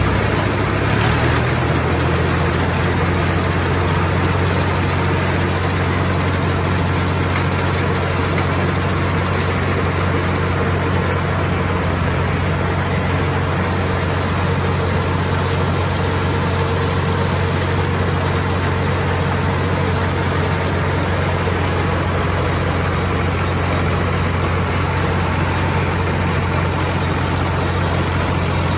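Ford 4610 tractor engine running steadily while mowing hay, with a low, even hum and the whirr of the New Holland 488 mower-conditioner behind it.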